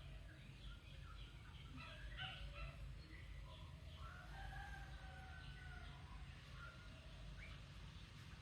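Green junglefowl crowing: a drawn-out call starting about four seconds in and lasting a couple of seconds, after a run of short chirping bird notes, over a steady low rumble.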